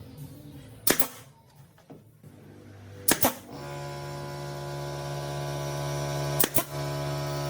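Sharp knocks, the second and third each doubled, over a steady machine hum that gets louder about three and a half seconds in.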